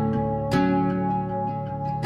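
Background music on plucked strings, with a chord struck about half a second in and another at the end, each left to ring.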